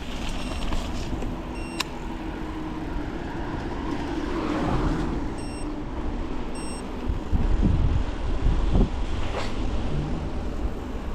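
Mountain bike rolling along a leaf-covered trail: steady tyre noise over leaves and ground, with rumbling knocks from bumps about seven to nine seconds in and a sharp click about two seconds in.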